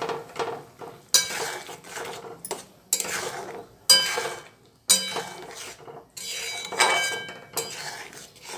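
Metal ladle stirring a thick curry in a metal wok (kadai), scraping and knocking against the pan about once a second, each stroke ringing briefly.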